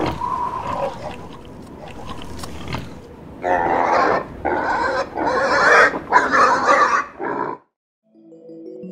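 Pig grunting and oinking, soft at first, then in four loud bursts over the second half. It stops abruptly, and soft mallet-instrument music begins near the end.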